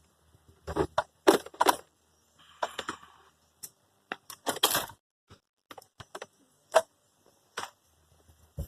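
Irregular clicks, knocks and light rattles of parts and tools being handled under a car's dashboard, with a short scraping rustle about two and a half seconds in.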